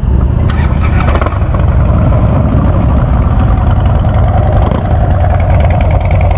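Harley-Davidson Ultra Classic's V-twin running steadily through a Vance & Hines Big Radius exhaust, with a loud, deep, even rumble.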